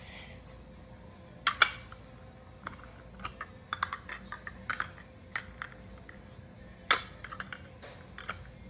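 Hard plastic toy clicking and tapping as it is handled and its parts pushed together: irregular sharp clicks, the loudest a second and a half in and again about seven seconds in.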